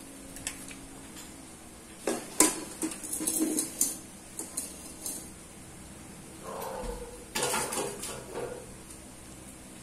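Cutlery clinking and scraping against a plate while eating, in two bursts of clatter: one about two seconds in and another near the end.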